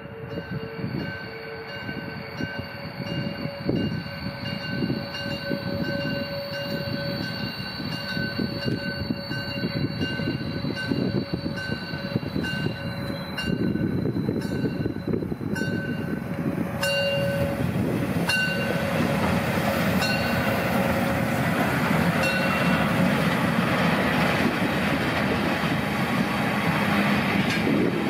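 Steam locomotive 52 8141-5, a DR class 52 2-10-0, working past with its train: a steady whistle note dies away in the first couple of seconds, then the engine's pulsing exhaust as it approaches, and from about two-thirds of the way in the louder rolling of the coaches going by.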